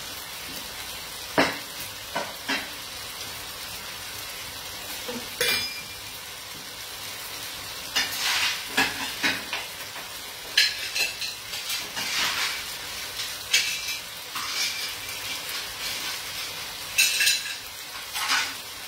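Cooked clams being spooned from a pan onto a plate: a run of shell and spoon clinks and scrapes through the second half, after a few single knocks, over the steady sizzle of a frying pan.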